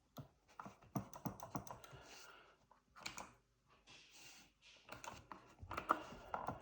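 Rapid, irregular clicking of arcade-controller push buttons and joystick switches being worked to edit.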